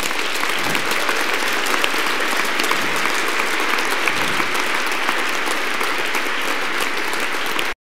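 Audience applauding, many hands clapping at a steady level; it cuts off abruptly near the end.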